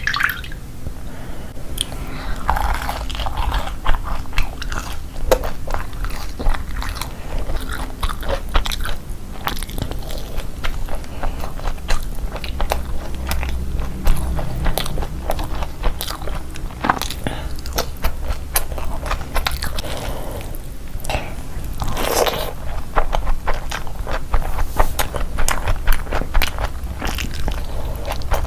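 Close-miked eating: steady chewing and smacking with frequent short crunches and bites, mouth noises throughout, over a low steady hum.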